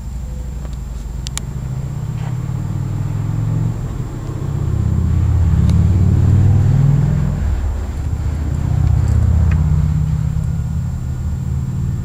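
Low engine rumble of a motor vehicle, swelling twice, about five seconds in and again about nine seconds in.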